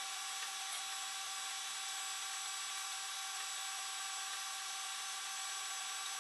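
RepRapPro Huxley 3D printer running a print: a steady mechanical whir with several thin, steady high tones.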